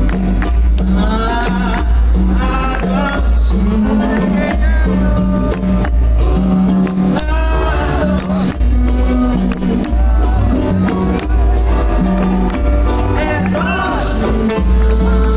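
Live band music with a strong, steady bass line and drums, and a woman's voice singing over it at times.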